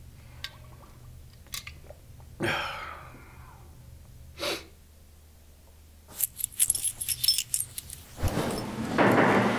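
A bunch of keys jangling in the hands, a run of quick metallic jingles over about two seconds. It is followed near the end by a dull thump and a louder stretch of noise.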